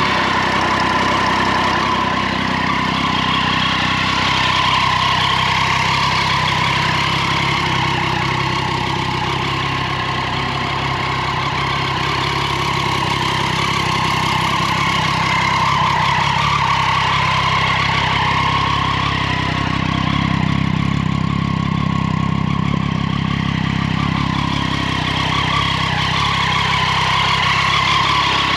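A 2012 Triumph Daytona 675R's 675 cc inline three-cylinder engine idling steadily.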